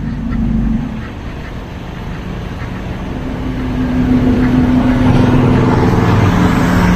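A motor vehicle engine running nearby with a steady low hum, growing louder from about three seconds in.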